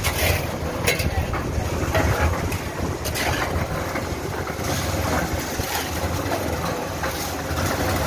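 Portable drum concrete mixer's engine running steadily, with a few short scrapes and knocks of a hand tool on wet concrete.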